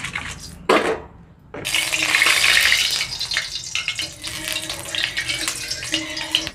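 Hot mustard oil sizzling and hissing in a metal wok as a spatula moves through it, starting suddenly about one and a half seconds in and loudest at first. A few clattering knocks of a steel colander come just before.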